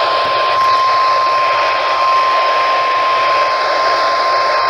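NOAA Weather Radio 1050 Hz warning alarm tone: one steady, unbroken beep over heavy radio-reception hiss. It is the alert signal that comes before a new severe weather warning is read.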